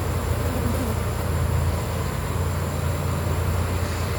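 Honeybees buzzing as a steady hum around an open hive during a brood frame inspection.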